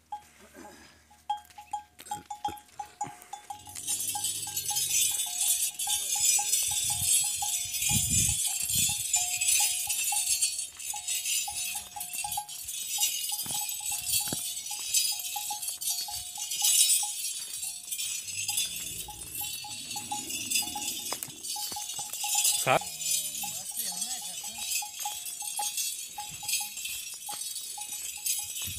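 Camels' neck bell and ankle bells ringing and jingling with every step as the camels walk over sand. A faint ringing tone pulses steadily, and a bright jingle starts a few seconds in and keeps going.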